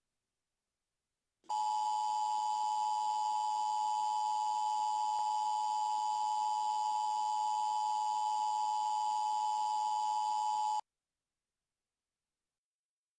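Steady electronic emergency-broadcast attention tone, a held two-note beep just under 1 kHz, starting about a second and a half in, lasting about nine seconds and cutting off abruptly.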